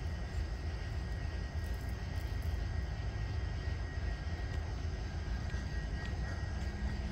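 Steady low rumble with a faint, steady high whine above it and no distinct events.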